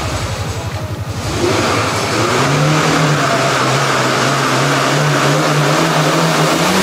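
Lada 'classic' (VAZ-2106) four-cylinder petrol engine idling with an even, rapid pulse, then revved up about a second and a half in and held at a steady higher speed.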